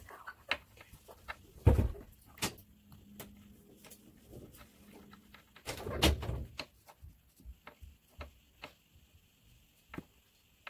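Small clicks and taps of hands and a metal seed-picking tool working on a strawberry on a paper-towel-covered tabletop, with two louder thumps, about two and six seconds in.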